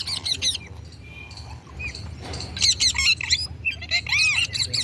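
Indian ringneck parakeet giving rapid runs of shrill squawking calls, a short burst at the start and a longer run from about halfway through, with a short pause between.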